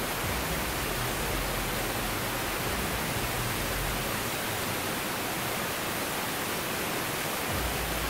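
Steady rush of a waterfall pouring and cascading over rocks, with a low rumble underneath that drops away partway through and returns near the end.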